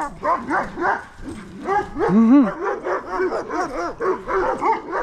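Dogs barking and yipping at each other in quick succession in a fence-line play fight, including a Doberman, with one longer rising-and-falling yelp about two seconds in.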